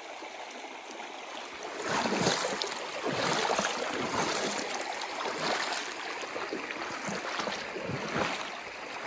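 Shallow stream flowing steadily over stones, then from about two seconds in, footsteps splashing and sloshing through the water in uneven surges.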